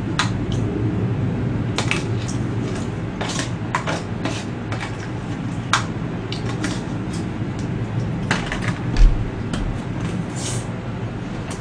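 Metal fork scraping and tapping in a foil tray of cream risotto: a string of short scrapes and clicks over a steady low hum, with a dull bump about nine seconds in.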